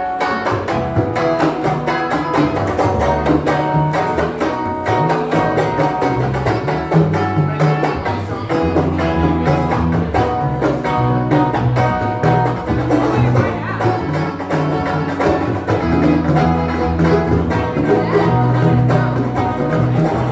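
Live band playing amplified music: guitar over a strong bass line, with hand-drum percussion keeping a steady beat.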